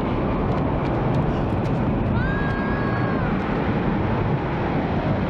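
Tornado wind in a film soundtrack: a steady, loud roar, heaviest in the low end. About two seconds in, a high, held wail rises over it for about a second.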